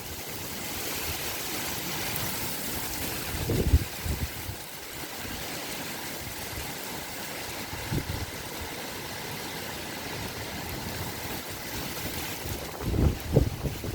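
Strong gusty wind: a steady rushing hiss, with low rumbling buffets of wind on the microphone about four seconds in, again around eight seconds, and several near the end.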